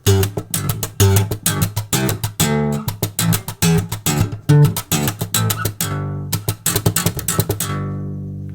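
Homemade bass, a twelve-string guitar converted to four strings and strung with guitar strings, played slap-style: a fast run of low plucked notes with snapping, percussive attacks. It ends on a longer note that rings and fades near the end.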